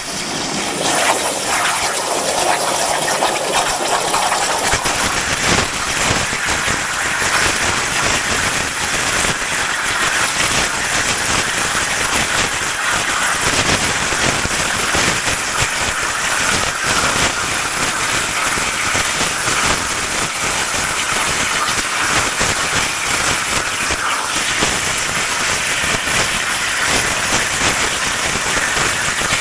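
TruCut CNC plasma table's torch cutting 3/16-inch steel diamond plate. The plasma arc makes a loud, steady, harsh hiss that starts suddenly as the arc strikes.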